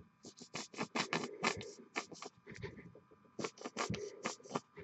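A nearly empty plastic dropper bottle of Reaper Master Series paint being squeezed. It sputters and spits paint and air from the nozzle in irregular short crackles, in two runs, the sound of a bottle running low on paint.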